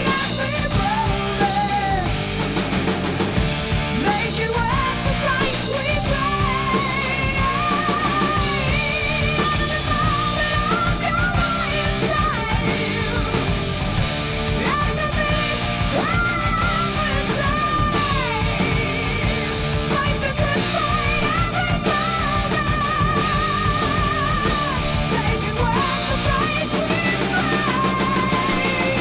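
Rock song with singing over a band.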